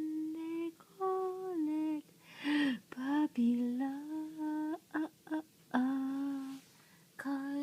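A woman humming a gentle, lullaby-like tune without words, in held notes that slide up and down, with a breath taken about two and a half seconds in.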